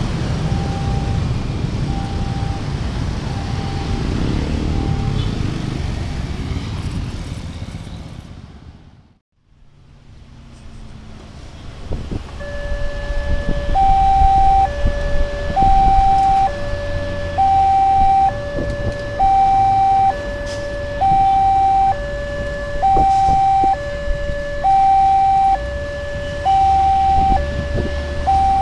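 Motorcycles and cars pass with a faint repeating beep, then fade out about a third of the way in. After that a railway level-crossing's electronic warning alarm starts up and becomes the loudest sound: two tones, high and low, alternate about once a second over road traffic. It signals an approaching train, with the barriers about to come down.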